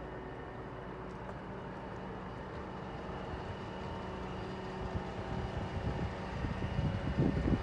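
Scania R124 truck's straight-six diesel idling with a steady hum. Wind buffets the microphone in gusts that grow stronger over the last couple of seconds.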